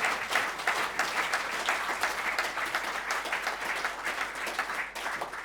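Audience applauding after a tango piece, the clapping thinning out near the end.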